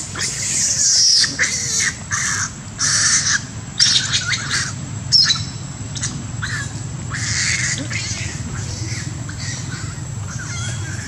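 A run of loud, harsh animal calls, each under a second, most of them in the first half, over a steady low hum.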